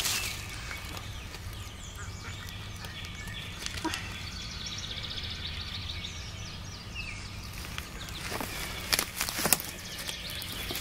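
Wild birds chirping and calling over quiet woodland background noise, with a few sharp crackles of dry leaf litter and twigs, the loudest two close together about nine seconds in.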